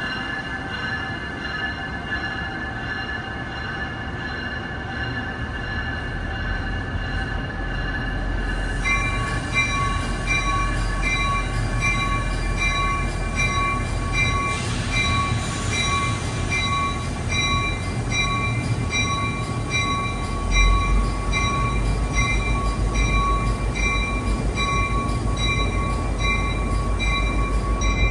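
Amtrak passenger train of stainless-steel Amfleet coaches rolling past, with a low rumble from the wheels building as it goes. From about a third of the way in, a high-pitched tone pulses on and off at an even pace, about twice a second.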